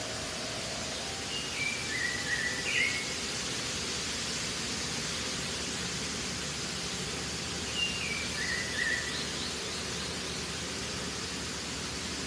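Steady rush of water spilling over a low concrete weir. A bird calls twice, about six seconds apart, each time a short phrase of a few notes stepping down in pitch.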